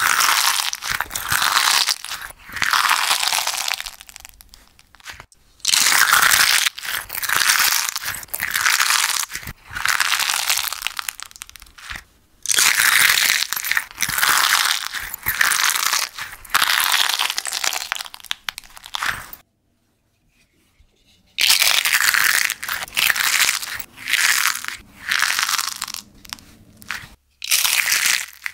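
Crispy slime bowls, molded in ruffled silicone cups, squeezed and crumpled in both hands: the hardened crust crackles and crunches as it breaks into flakes. The squeezes come in repeated bursts of a second or two, with a brief full silence about two-thirds of the way through.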